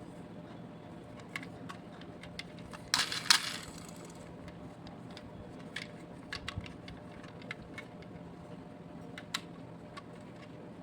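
Small hard toy pieces clicking and tapping, with one brief loud metallic clatter about three seconds in, over a steady low hum.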